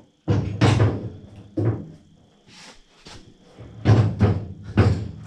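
Dull knocks and thuds from a 1934 Ford coupe's deck lid and hinges being handled and set in place. There are a few near the start and two more about three seconds later.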